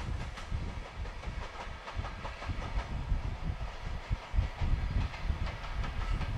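Container freight train of Koki flat wagons rolling past, its wheels clacking over the rail joints in a run of irregular clicks over a low rumble.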